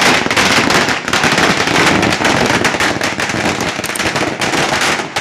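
A string of firecrackers going off on the ground, a dense, unbroken run of rapid sharp bangs.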